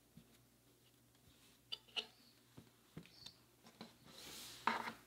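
Hands folding and rolling soft knit child's trousers on a tabletop: light fabric rustles and soft pats and taps, with a longer swish of cloth near the end followed by the loudest tap.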